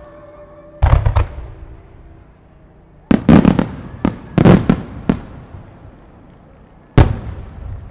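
Aerial firework shells bursting: a bang about a second in, a cluster of bangs from about three to five seconds, and a last bang near the end, each dying away in a rumbling tail.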